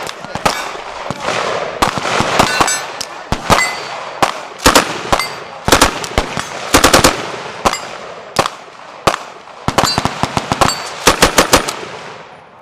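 Automatic gunfire in short rapid bursts mixed with single shots, with other guns overlapping in the background.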